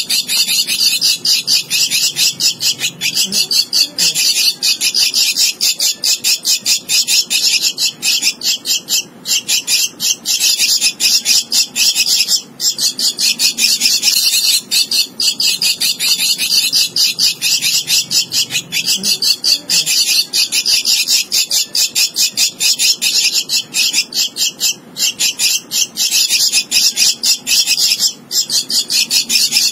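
Javan myna nestling begging: a fast, unbroken run of high, raspy calls, several a second, with only a few short breaks.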